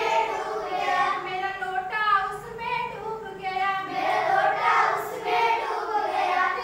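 A group of children singing a Hindi action song together.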